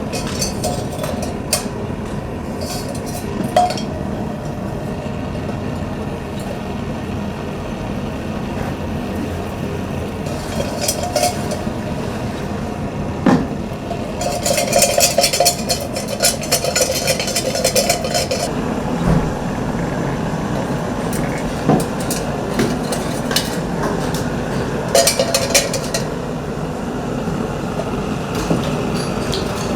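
Coppersmith tinning copper: bursts of rapid, light metal hits ringing on thin copper, the longest a run of about four seconds midway, with scattered single knocks over steady low background noise.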